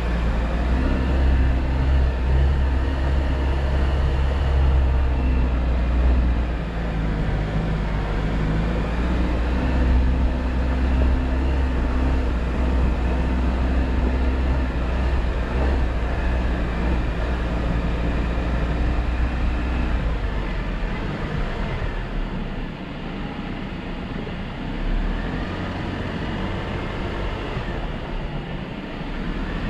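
Jeep Wrangler engine running as it drives, a steady low drone. It eases off and gets somewhat quieter about twenty seconds in.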